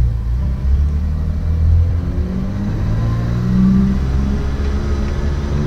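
A BMW 3.0 CSi's fuel-injected 3-litre inline-six engine pulling away under throttle. It is a steady low rumble at first, then its pitch rises from about halfway through as the car accelerates.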